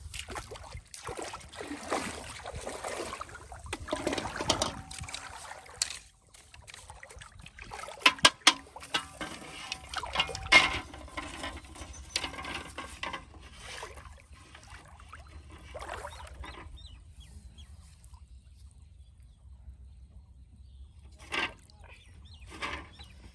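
Pond water splashing and sloshing in irregular bursts, with a few sharp knocks about eight and ten seconds in, then a quieter stretch with two short splashes near the end.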